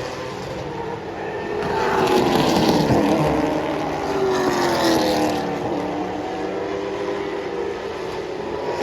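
Limited late model stock car engines at racing speed passing on a short oval track. Their pitch drops as each car goes by, with the loudest passes about two seconds in and again around five seconds.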